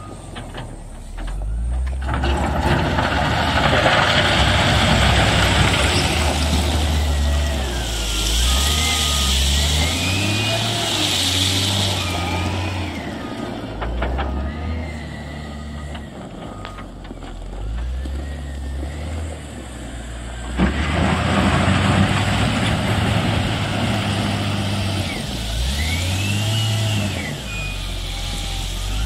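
CAT 950 GC wheel loader's six-cylinder diesel engine revving up and easing off as it pushes and spreads basalt gravel, with a whine that rises and falls with engine speed. Stretches of stone scraping and grinding under the bucket come and go, one starting sharply about two-thirds of the way through.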